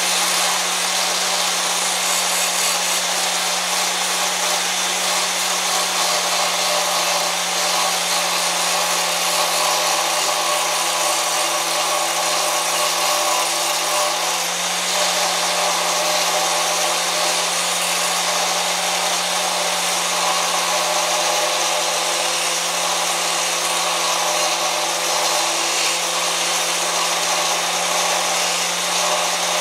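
Angle grinder with a new wheel running steadily at full speed, grinding down a weld on a steel mini bike frame to make the foot peg fit. It gives a steady whine over a dense hiss, the grinder's pitch barely dipping as it bears on the metal.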